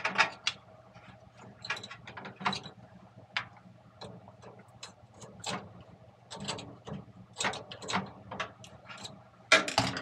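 Irregular clicks and rattles of hands working wire connectors and metal parts inside an opened microwave oven's chassis, beside the high-voltage transformer, with a louder clatter near the end. A steady low hum runs underneath.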